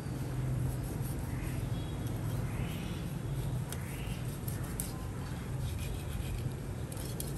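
A bird calling three times, about a second and a half apart, over a steady low hum, with a few light clicks near the middle and again near the end.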